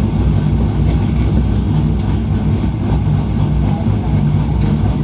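A steady low engine drone, like a motor idling nearby, with a faint click or two on top.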